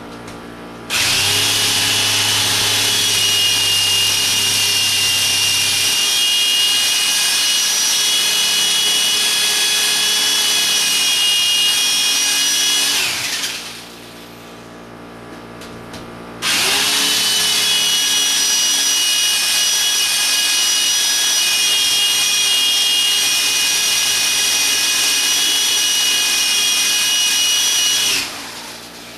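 Electric drill boring into a concrete block wall, run in two long, steady bursts of about twelve seconds each with a short pause between, the motor winding down at the end of each run.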